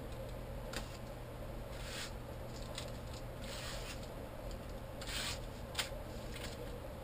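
Plastic card scraping paint across a paper book page: several short, dry scraping strokes, irregularly spaced.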